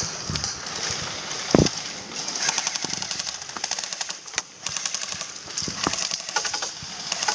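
Airsoft guns firing rapid full-auto bursts, several runs of fast clicking pops, with one thump about one and a half seconds in.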